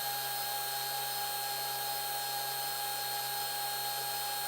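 3D printer's Z-axis stepper motors running steadily as the axis is jogged up 10, turning the lead screws: a steady motor hum that starts at once.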